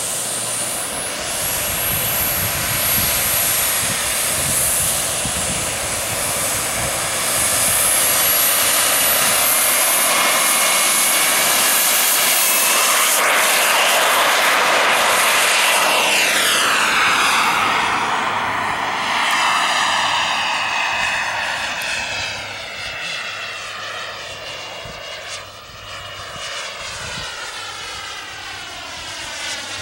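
Radio-controlled model jet's engine at full power: a high whine and rushing noise through the takeoff run, loudest about halfway through as the jet passes close by, then dropping in pitch and fading as it climbs away.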